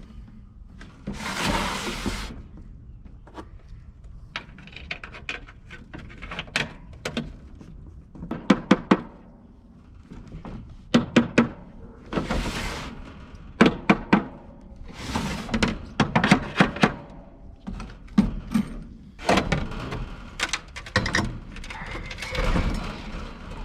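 Irregular knocks, thunks and clatter of hands-on work, with a couple of short rushing noises.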